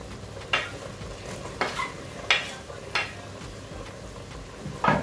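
A spoon knocking against a cooking pot about five times, over a steady sizzle from the pot, as food is stirred or added to the soup.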